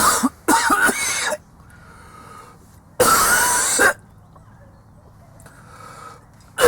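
A man's deliberate, exaggerated coughing: a harsh cough about half a second in lasting about a second, then after a short break a louder, rougher cough about three seconds in.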